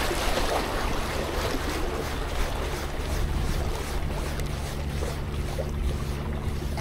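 Steady seaside background of waves washing around a tetrapod breakwater, with wind on the microphone and a low steady hum underneath.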